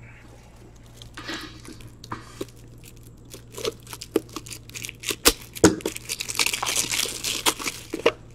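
Plastic wrapping of a hockey card pack crinkling and tearing as it is cut and opened by hand, with sharp snaps mixed in. The crinkling grows denser and louder in the second half.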